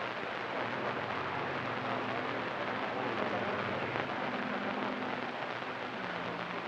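Steady hiss of band static from a CB radio receiver on channel 28 between transmissions, with faint steady tones from weak carriers underneath.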